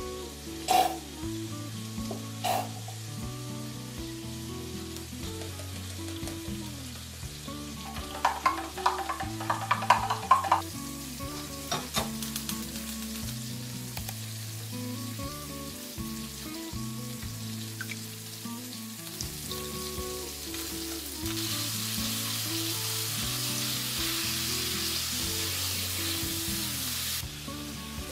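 Thin pork pieces sizzling as they fry in a frying pan; the sizzle grows louder about two-thirds of the way through and drops off near the end. About eight seconds in come two or three seconds of rapid clattering. Soft background music plays throughout.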